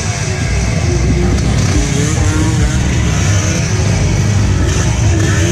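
Enduro dirt bike engines revving hard, their pitch rising and falling again and again over a steady low rumble, typical of riders working the throttle on a steep climb.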